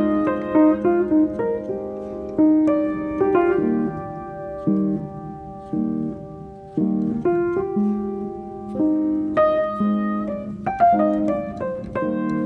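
Background piano music, with single notes and held chords changing every second or so.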